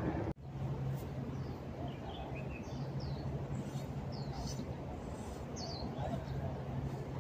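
Small birds chirping, a series of short high calls a few seconds long, over a steady low hum and outdoor city background noise.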